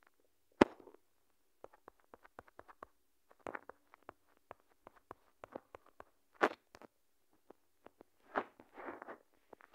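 Scattered light clicks and taps from a phone being handled and its touchscreen tapped while scrolling, with one sharper knock about half a second in and a few short noisy rustles later on.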